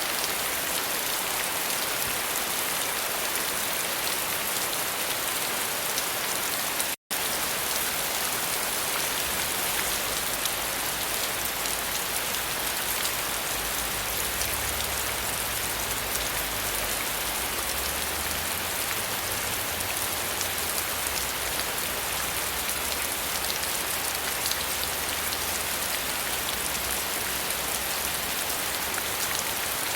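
Steady rain falling, a dense hiss of drops pattering on a surface. About seven seconds in the sound cuts out completely for a split second. After that a faint low rumble comes and goes underneath.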